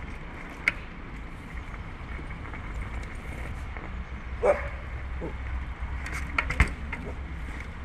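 Downhill mountain bike ridden over snow: a few sharp clicks and knocks from the bike, the loudest about two-thirds through, over a steady low wind rumble on the microphone. A short sound that slides in pitch comes about halfway.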